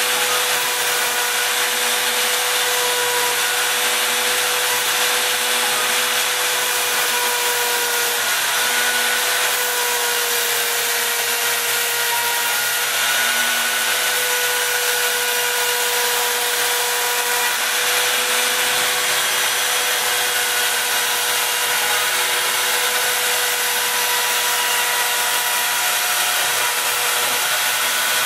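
CNC router spindle running steadily with an even, high whine over a hiss as the bit cuts part outlines in a flat sheet.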